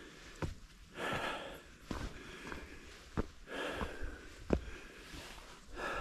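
A hiker breathing hard on an uphill climb, three heavy breaths about two and a half seconds apart, with the sharp taps of footsteps on the trail between them.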